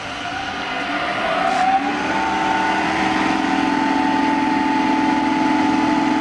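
Modified AMR500 Roots-type car supercharger, driven by an electric motor and used as an aerator air blower, starting up: its whine rises in pitch over about two seconds, then holds steady and noisy.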